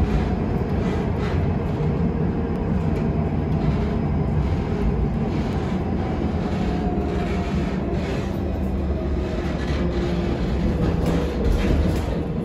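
Tram running, heard from inside the passenger cabin: a steady rumble of wheels on the rails and the car body, with faint whining tones that come and go.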